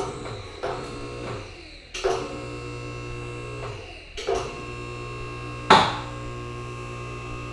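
Max Jax portable lift's electric hydraulic power unit running with a steady hum as it raises a roughly 4,500-pound car, near the lift's rated limit. The hum dips briefly twice and is broken by three sharp clacks, the loudest about six seconds in.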